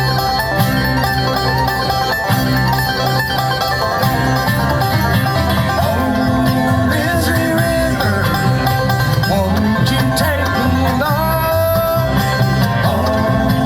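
A bluegrass band playing a song, with banjo picking over guitar and a steady bass pulse.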